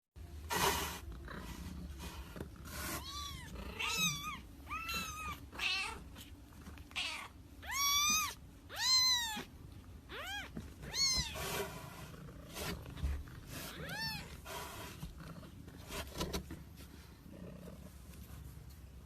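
A cat meowing repeatedly: about ten high calls, each rising and then falling in pitch, with short noisy bursts in between.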